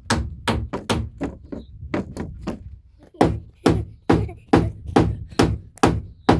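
Hammer blows on wood, a steady run of evenly spaced strikes, about two to three a second, growing louder about three seconds in.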